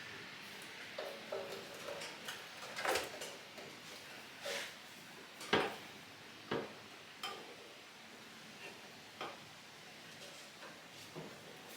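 Irregular light clicks, knocks and metallic clinks of handled tools or parts, about a dozen, the sharpest about three, four and a half and five and a half seconds in.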